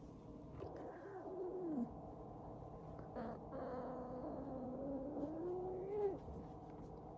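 A cat giving two long, low, drawn-out angry yowls. The first falls in pitch; the second is longer, rising and then dropping away at the end. A short click sounds between them.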